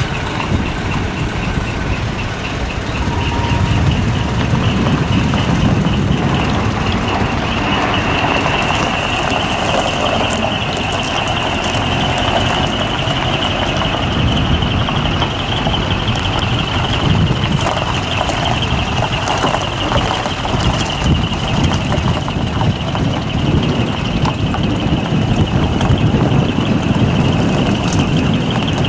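Diesel engine of a large decorated truck running as the truck pulls slowly away across a gravel lot. Over it sounds a high electronic warning tone, pulsing at first and then held steady.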